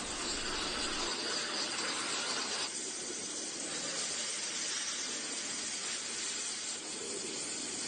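Water jet cutter's high-pressure jet hissing steadily as it cuts through a metal padlock; the hiss dulls slightly about three seconds in.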